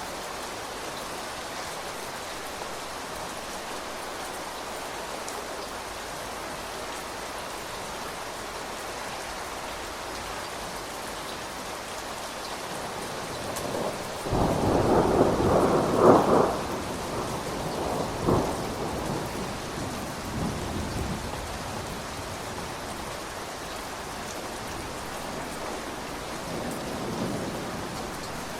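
Steady rain falling, with a peal of thunder about halfway through that swells, peaks and rumbles away over several seconds; a fainter rumble comes near the end.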